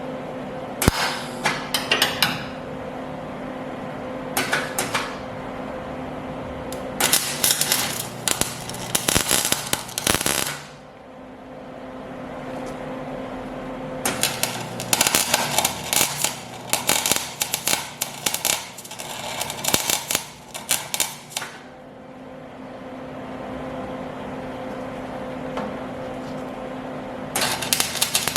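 Metal repair work on a truck's dump-bed hinge. About five bursts of rapid, sharp crackling or hammering come and go, each lasting one to several seconds and the longest about seven, over a steady machine hum.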